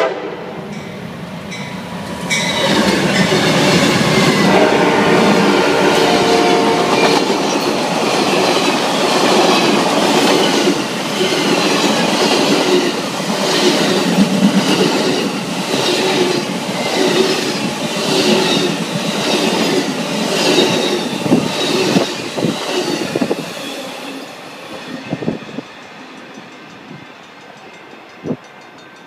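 Amtrak Southwest Chief passenger train passing close by. Its diesel locomotives (a GE P42 and P40s) go by first, then a long string of Superliner cars whose wheels clack over rail joints in a steady rhythm. The sound swells about two seconds in and fades away near the end.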